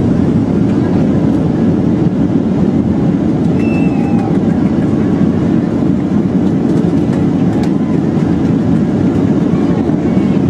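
Steady roar of a Boeing 737-800's cabin, from its CFM56-7B engines and the airflow over the airframe, heard from a window seat. It stays loud and even throughout.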